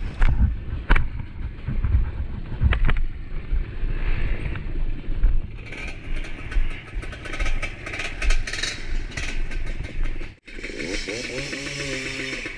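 Motorcycle ridden over a rough dirt trail: its engine runs under a heavy low rumble, with several sharp knocks and thumps in the first three seconds and a rattling clatter later on. The sound drops out briefly near the end.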